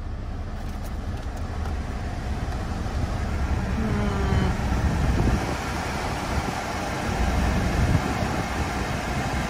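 Climate-control blower fan blowing air through the dash vents of a 2016 GMC Terrain, growing louder over the first few seconds, over the steady idle of its 2.4-litre four-cylinder engine. The air is not yet cold: the AC had not started cooling.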